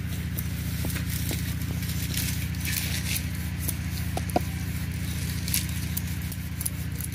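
A steady low machine hum with scattered light clicks and rustles from hands folding and shaping lachcha paratha dough.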